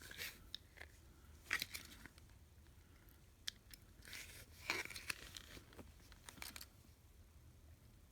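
Small hand tools and plastic packaging being handled: scattered light clicks and short rustling, crinkling bursts, a few seconds apart.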